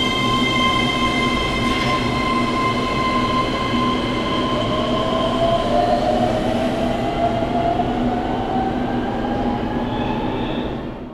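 Keihan electric train pulling out of an underground station. Its traction motors give a steady high whine, and a lower tone rises in pitch over several seconds as it speeds up, over the rumble of the wheels. The sound fades near the end as the train moves off.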